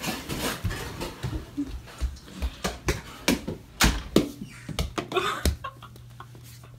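Footsteps and handling knocks as a phone is carried through the house: irregular knocks and clicks, loudest about four seconds in. A low steady hum comes in at about the same point.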